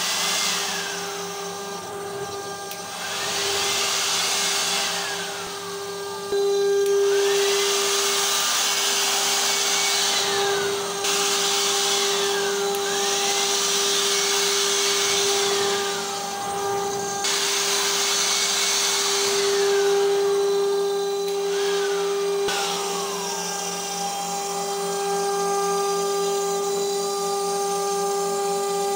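CNC router carving a wood panel: the spindle runs with a steady hum and whine while the axis motors give repeated whines that rise and fall in pitch as the gantry moves. A handheld electric blower adds a rushing hiss that comes and goes, cutting off sharply a few times.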